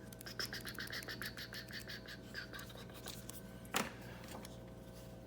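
Handling of a watch presentation box: a fast run of faint scratchy clicks for about two seconds, then a single knock.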